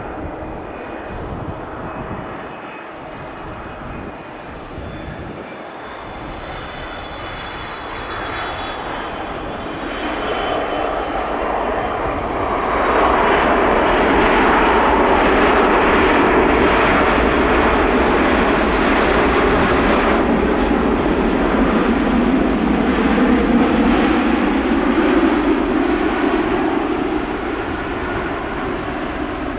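Air Canada Boeing 777-300ER with GE90 turbofans landing, with a high engine whine over the approach noise. About 13 seconds in it swells to a loud roar as the jet rolls out past on the runway, then eases off near the end as it slows.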